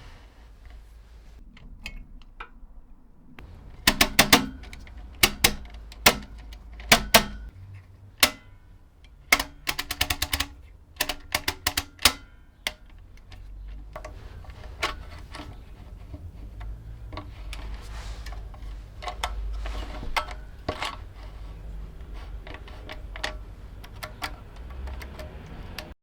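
Restored Felix M mechanical arithmometer being worked by hand: its aluminium and steel mechanism gives a series of sharp clicks and clacks. They are loudest and come in quick clusters from a few seconds in to about halfway, then fainter, scattered clicking follows.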